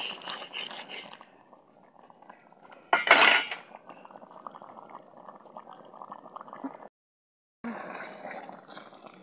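Pot of stew peas with flour dumplings bubbling at a boil while a metal spoon stirs it, with light clinks of spoon against the pot. A short loud rush of noise comes about three seconds in, and the sound cuts out briefly near the end.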